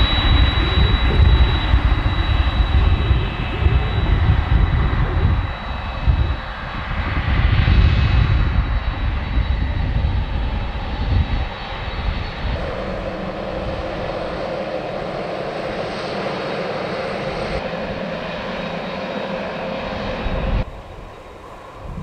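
Boeing 767 airliner's twin turbofan engines running at low power as it taxis, a steady high whine over a deep rumble that swells and fades. The level drops sharply near the end.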